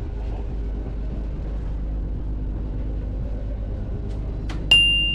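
Steady low rumble of a passenger ferry's engine, heard aboard. Near the end a single sharp metallic ding rings on in one clear high tone.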